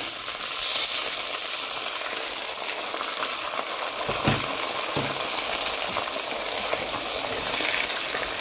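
Chopped tomatoes sizzling steadily as they hit a hot oiled pan of frying salted fish and onions, with a couple of low knocks of the spoon against the pan about four and five seconds in.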